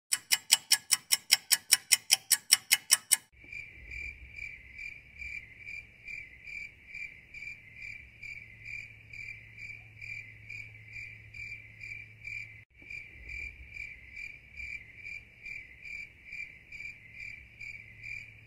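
Cricket chirping sound effect: a steady chirp pulsing about three times a second, the stock 'crickets' gag for an awkward silent wait. It is preceded by about three seconds of louder, sharper rapid clicking, around five clicks a second, that cuts off abruptly.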